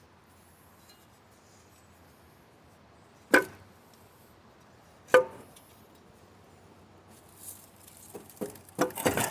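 Two sharp metal clanks about two seconds apart, each ringing briefly, then a run of lighter metallic clinks and clatter near the end: hand tools and steel parts knocking together during engine teardown work.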